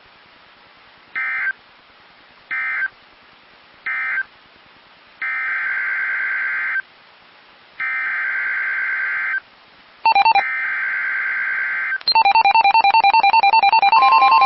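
Emergency Alert System data bursts on NOAA Weather Radio. First come three short end-of-message bursts closing one severe thunderstorm warning. Then come three longer, buzzy SAME header bursts announcing the next warning, and a rapidly pulsing electronic alert beep starts near the end, joined shortly after by a steady warning alarm tone.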